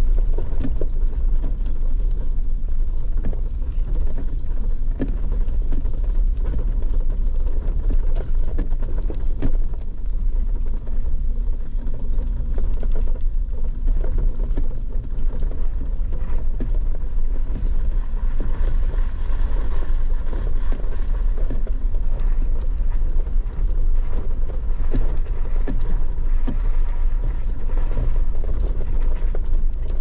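A Jeep crawling slowly over a bumpy dirt trail: a steady low engine and drivetrain rumble, with frequent knocks and rattles as the wheels drop over ruts and rocks.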